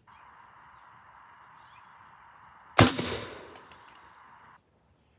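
A single suppressed shot from a .300 Blackout AR fitted with a Silencerco Hybrid 46M, firing a subsonic 220-grain load, about three seconds in. It is a sharp crack with a short ringing tail, followed by a few light metallic clicks. A faint steady hiss underneath cuts off suddenly shortly after.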